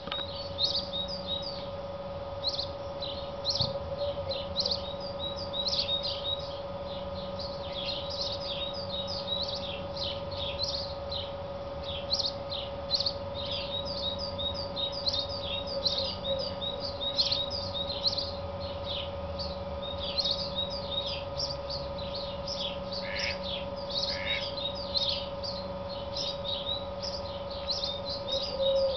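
Male house sparrow giving its advertising call: a long run of short, repeated chirps in clusters with brief pauses, the call a male uses at his nest site to attract a female. A steady faint hum lies underneath.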